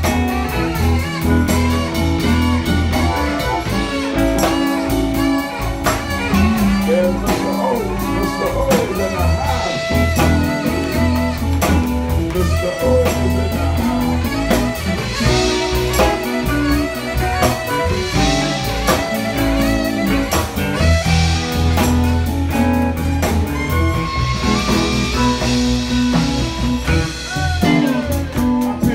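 Live blues band playing: electric guitar leading with bent notes over bass and a drum kit keeping a steady beat.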